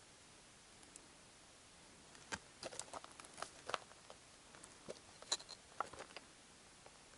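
Faint footsteps crunching on dry, gravelly desert ground: a run of irregular small crunches and clicks starting a little over two seconds in and stopping about a second before the end.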